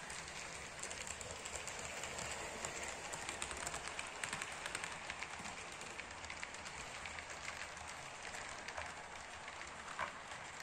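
HO-scale model train coaches rolling past on the track: a steady rattling patter of fine rapid clicks from the wheels on the rails, with one sharper click near the end.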